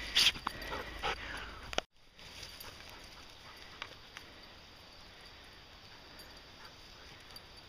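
A dog close to the microphone for about the first two seconds, with a few short whines among clicks and rustling. It cuts off abruptly, giving way to faint, quiet woodland ambience with a few soft ticks.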